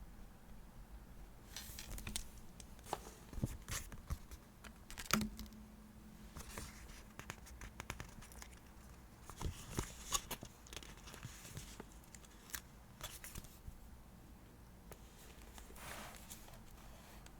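Paper and stickers being handled for diary decorating: scattered light taps and short, irregular rustling and tearing sounds.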